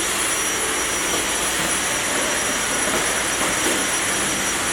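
Cordless Dyson stick vacuum running steadily with its trigger held: an even rushing of air with a high, steady whine from the motor.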